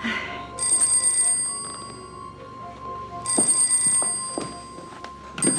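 Telephone ringing: two rings of a second or more each, about two and a half seconds apart, with a third ring starting near the end.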